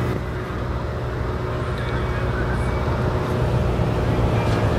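Mid-engine C8 Corvette's V8 running at a slow crawl, a steady low engine rumble.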